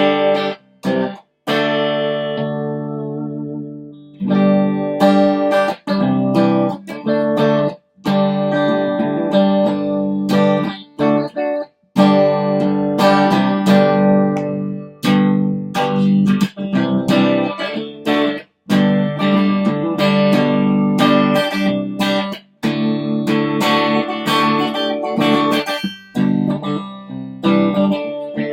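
2018 Duesenberg Paloma electric guitar played through its pickups with a little overdrive from an Ibanez Nu-tube pedal: chords played one after another, several cut off suddenly and one left ringing to fade out near the start.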